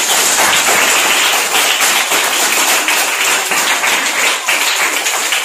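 Many children clapping together in steady, continuous applause.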